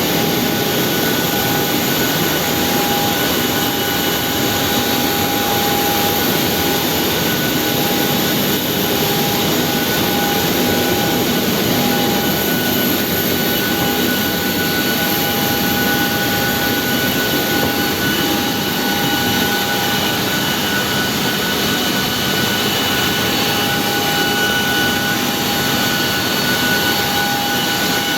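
Boeing 737-800's CFM56 jet engines running steadily: a constant rushing noise with a steady high whine over it.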